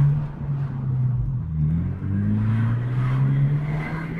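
Kia Ceed GT's 1.6 turbo engine heard from inside the cabin, running through a straight-through tuned muffler with a deep exhaust note. It revs up, eases off twice and pulls again.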